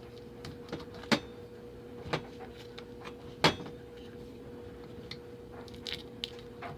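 Excess Ziploc freezer-bag plastic being trimmed away from around a PVC plug fitting: scattered sharp clicks and crinkles of cutting and handling, the loudest about a second in, two seconds in and three and a half seconds in. A steady hum runs underneath.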